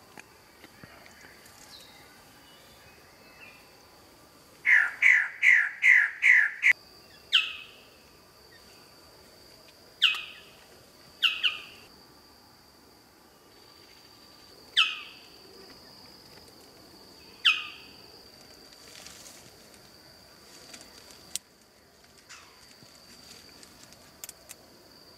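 Male magnificent bird of paradise calling: a fast run of six loud, sharp notes, each falling in pitch, about five seconds in, then five single falling notes a few seconds apart. A faint steady high whine runs underneath.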